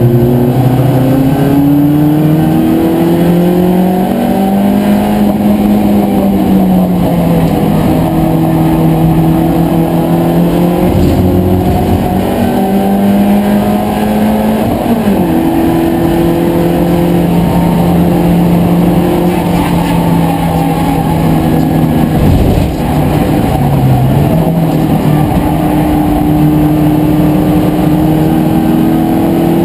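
BMW Compact Cup race car's engine at racing speed, heard from inside the cockpit. Its note climbs and falls with throttle and gear changes, with a sharp shift about halfway through and a brief lift about three-quarters through.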